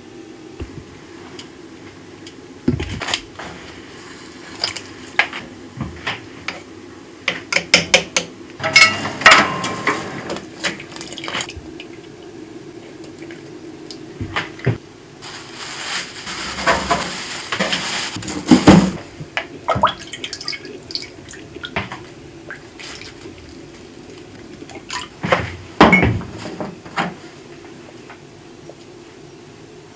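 Cooking at a pot: a metal utensil knocking and clinking against an aluminium pot in scattered bursts, with a few seconds of broth splashing about halfway through as cooked pork is lifted out of it, over a steady low hum.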